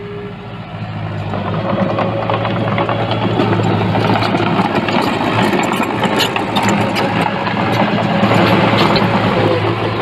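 Diesel engine of earthmoving machinery running under load, building up over the first couple of seconds, with scattered metallic clanks and rattles on top.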